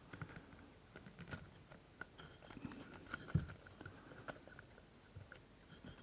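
Faint, scattered small clicks and scratches of a wooden skewer poking a rubber wristband down into the gap between a lens's focus ring and its barrel, with one duller knock about three and a half seconds in.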